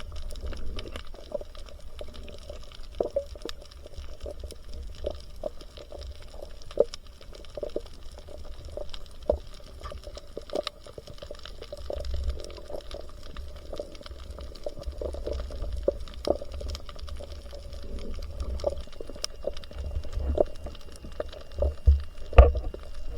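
Water sloshing and bubbling around the camera, with a low rumble and many scattered short, sharp clicks.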